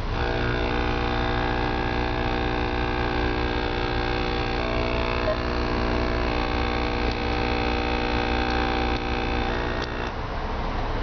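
A steady electronic hum of several held tones from the car audio head unit's speakers. It starts abruptly and drops away near the end. Under it is the low, even rumble of the car's idling engine.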